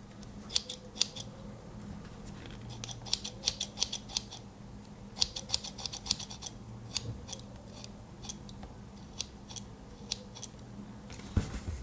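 Small spring-loaded scissors of a Victorinox Huntsman Swiss Army knife worked open and shut again and again, giving sharp little metallic snips and clicks in irregular clusters. A duller knock comes near the end.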